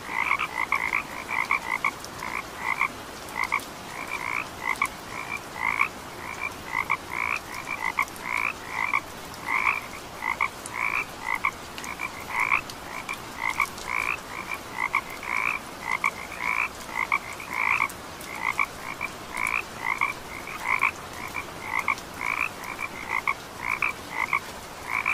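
Frogs calling: an unbroken run of short croaks, about two to three a second, each with a lower and a higher pitch together.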